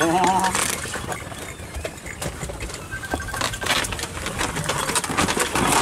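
Wooden buffalo cart creaking and knocking as its spoked wheels roll over a muddy track, with irregular clicks and clatter throughout and a short wavering squeal right at the start.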